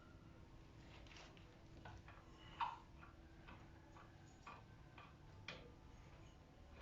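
Faint, irregular metallic clicks and taps of hand tools working the bolts of a wheel hub bearing assembly, with one sharper click about two and a half seconds in.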